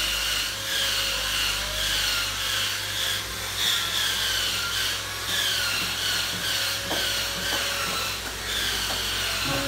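A power tool working wood: a high whine that slides down in pitch and jumps back up about once a second, over and over, with a few light clicks. Music comes in right at the end.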